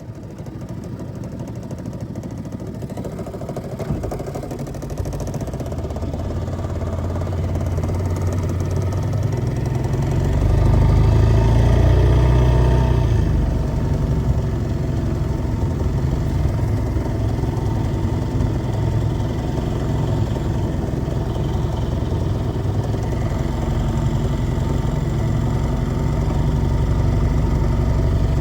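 Small boat motor running under way, its note climbing as it speeds up about ten seconds in, then holding steady at a cruising pace.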